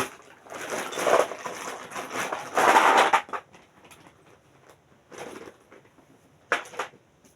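Parcel packaging crinkling and rustling as it is handled: a dense stretch of crackly noise over the first three seconds or so, then two short bursts later on.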